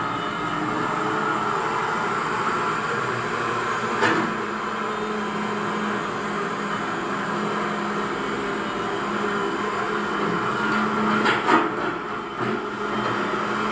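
Radio-controlled Cat 336D model excavator running, a steady mechanical whine from its electric motors. A sharp knock comes about four seconds in, and a short clatter near the end.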